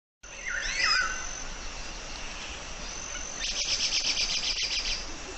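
Bird calls and insects: a few sliding whistled bird notes in the first second, a thin steady high insect tone, then a fast pulsing insect buzz from about three and a half seconds to five seconds.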